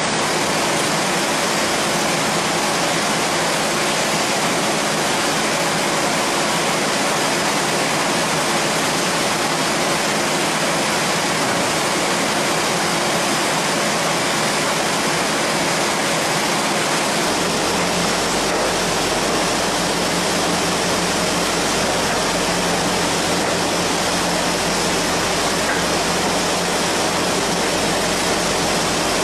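Folder gluer running with a loud, even rushing noise; about 17 seconds in a low hum sets in underneath.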